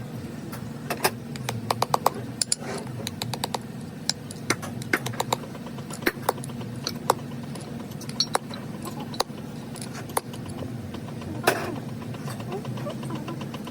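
Irregular sharp metallic clicks and taps of hand tools at work, some in quick runs, with a louder knock about eleven seconds in, over a steady low machine hum.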